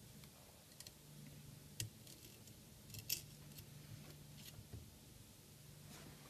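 Near silence with a few faint clicks and taps as the metal rail and plastic parts of a Renault Laguna's cable-type window regulator are handled, over a faint low steady hum.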